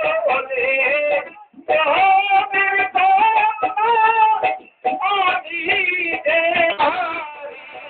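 A Bengali dance song: a high voice sings a melody over instrumental backing, with two short gaps, about a second and a half in and near five seconds in. Near the end the voice stops and the instruments carry on more quietly.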